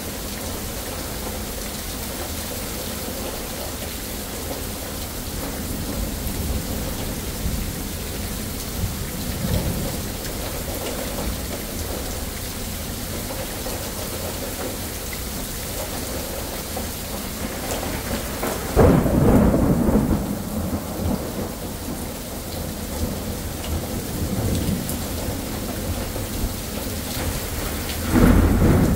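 Steady rain falling, with low thunder rumbling in the first half. A loud thunderclap breaks in about two-thirds through and rolls on for a couple of seconds, and another crack of thunder comes near the end.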